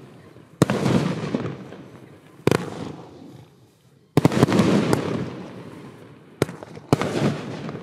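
Category F2 consumer fireworks bursting: sharp bangs every second or two, each trailing off in a fading tail, with a quick cluster of several bangs about four seconds in.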